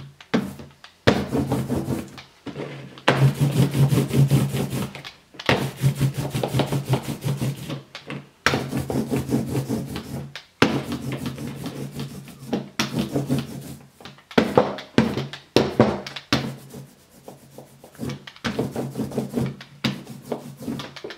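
Hand ink roller (brayer) being rolled back and forth over a carved lino block, spreading black printing ink evenly up to the edges. The strokes come one after another, each lasting a second or two, with short breaks between them.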